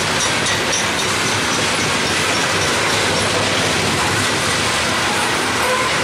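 Loaded CSX coal hopper cars rolling steadily past on steel wheels, with a continuous rumble and clatter of wheels on rail.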